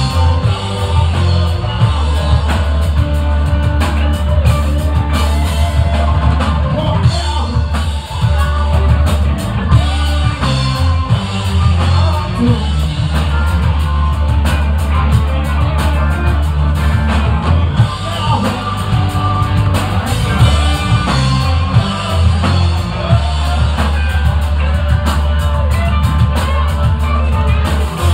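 Live rock band playing loud: drum kit, electric guitars and bass, with a singing voice. Heard from the audience in a small bar, so the bass is heavy.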